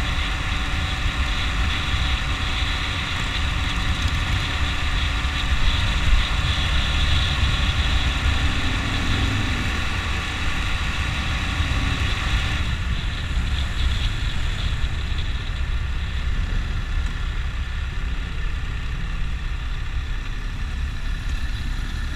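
Motorcycle engine running while riding along a road, with wind noise on the microphone. The high hiss drops off abruptly about halfway through, leaving mostly the low engine rumble.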